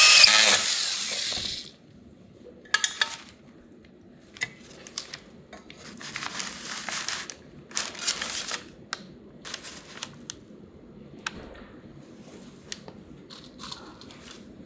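A power driver whirs briefly and stops about one and a half seconds in. Then brown kraft paper crinkles and rustles in irregular bursts as it is folded around a cast iron frying pan.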